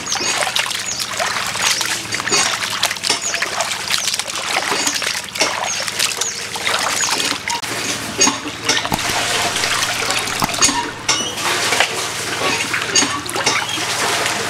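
Water splashing and sloshing as hands wash pieces of raw goose meat in a steel pot of water, rubbing and swishing them about with irregular splashes and trickles.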